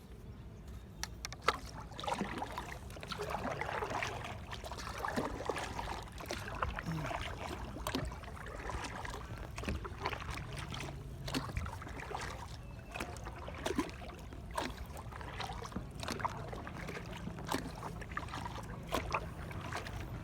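Paddle strokes in calm water: the blades dip and splash with drips, in an irregular run of small splashes.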